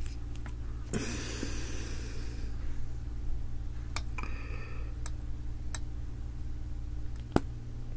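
Close-miked handling of a plastic syringe filled with red slime being worked into clear nano tape: a soft rushing noise a second or so in, then a few light plastic clicks about four, six and seven seconds in, over a steady low hum.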